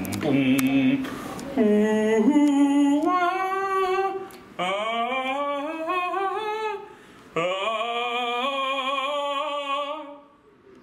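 A man singing three long, drawn-out notes, each sliding upward in pitch and wavering, with short breaks between them.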